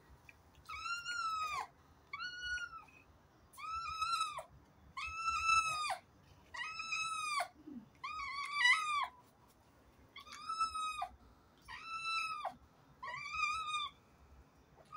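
Domestic cat meowing over and over, about nine drawn-out meows roughly one every second and a half, each dropping in pitch at its end: the cat is begging for food held above it.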